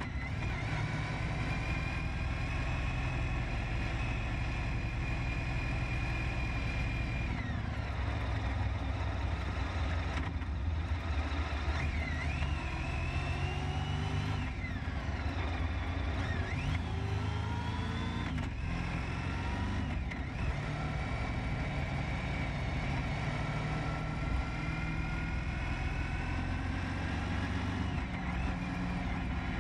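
Honda ST1300 Pan European's V4 engine running under way in traffic, its pitch rising and falling as the bike slows and speeds up, over a steady rumble of road and wind noise.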